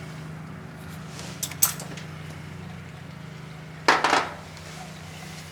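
Metal hand tools clinking and clattering, a ratchet and sockets being handled: a couple of light clicks, then a loud metallic rattle about four seconds in, over a steady low hum.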